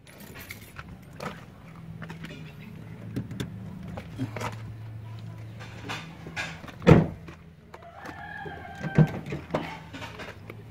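Footsteps on dirt and grass over a low steady hum, with a loud thump about seven seconds in. A rooster crows once about eight seconds in.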